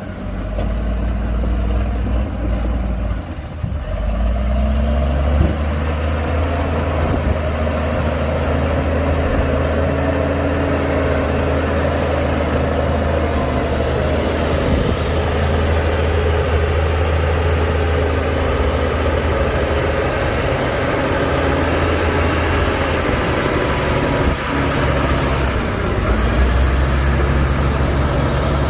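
Heavy diesel earthmoving machinery running at work, a steady loud engine drone whose pitch sags briefly about four seconds in and again near the end.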